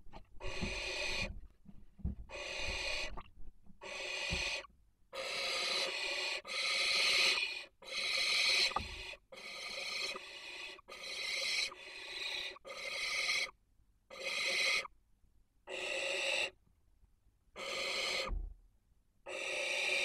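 Barn owls hissing: a long series of harsh, rasping calls, each half a second to a second long, repeated roughly every second and a half.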